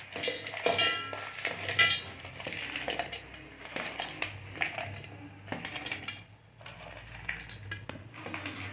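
Clinks and knocks from a stainless steel mixer-grinder jar being handled while broken biscuit pieces are dropped in by hand. The jar rings briefly about a second in.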